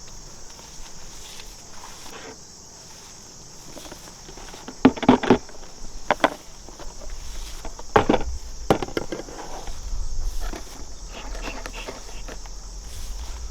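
Insects chirring steadily in a high, even drone, with a few sharp knocks and rustles from handling gear about a third of the way in and again a few seconds later.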